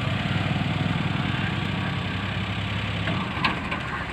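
A small hatchback's engine idling steadily, the car standing still with the driver at the wheel, with one short knock about three and a half seconds in.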